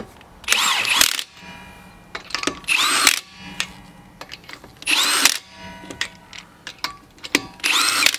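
Milwaukee cordless impact wrench running lug nuts onto a wheel's studs in four short bursts, each a whine that rises and then falls away as the trigger is let go.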